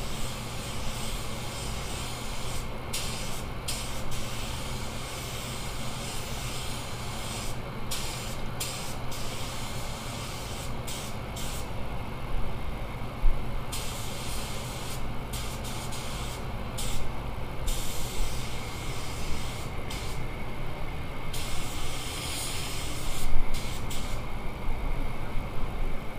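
Compressed-air paint spray gun hissing in repeated passes, the hiss starting and stopping as the trigger is pulled and released, over a steady low hum.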